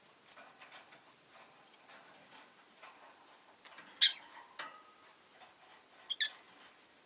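Rosy-faced lovebird giving a sharp, shrill chirp about four seconds in and a quick double chirp near the end, with faint soft clicks and rustling in between.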